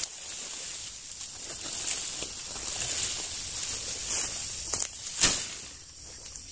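Tall grass and oil palm fronds rustling and swishing as a person in rubber boots pushes through undergrowth on foot, with a louder swish a little over five seconds in. A steady high hiss runs underneath.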